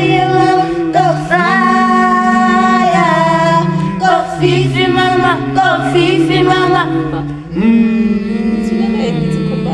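A cappella vocal group singing in close harmony, several voices holding chords that change every second or so. There is a short break about seven and a half seconds in before the chord returns.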